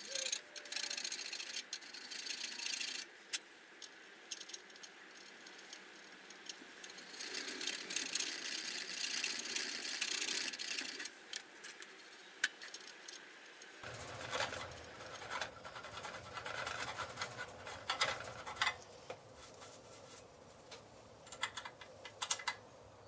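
Irregular scraping strokes of a hand tool cutting a slot in a cast metal fly cutter body clamped in a vise, with sharp clicks and taps between the strokes.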